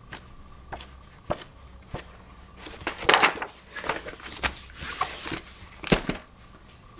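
Pages of a large hardback atlas being flipped in quick succession, each turn a short flick. This gives way to louder paper rustling and knocks as the book is closed and moved, with a sharp knock about six seconds in.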